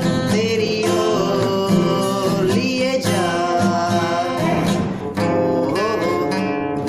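Men singing with wavering, held notes to a strummed acoustic guitar.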